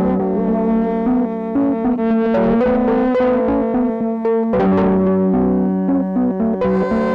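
Instrumental background music: held chords that change every couple of seconds, with a brighter change near the end.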